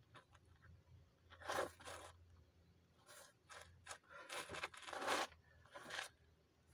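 Shoes scuffing and crunching on a dirt path as a person shifts stance through slow tai chi steps: about five short scrapes, the longest a little past halfway.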